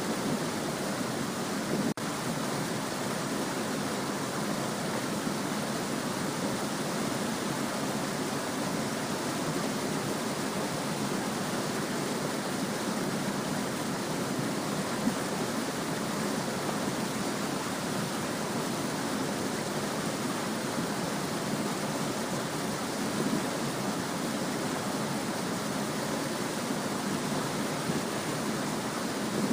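A small stream flowing and babbling steadily, an even rush of water with no breaks.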